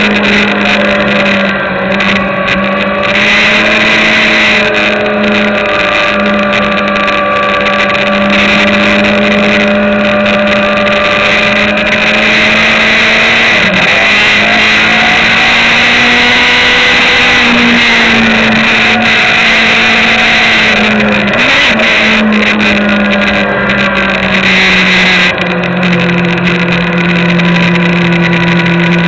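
Sport motorcycle's engine running hard on track, heard from an onboard camera: loud and continuous, its pitch rising and falling as the bike accelerates and slows through corners, with two short breaks in the note and a lower, steadier tone near the end, over a constant airflow hiss.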